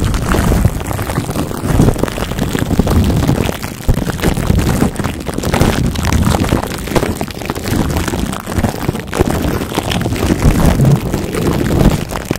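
Plastic wrap over a microphone's grille being rubbed and scrunched by fingers right at the mic: continuous dense crinkling and rustling with a deep handling rumble.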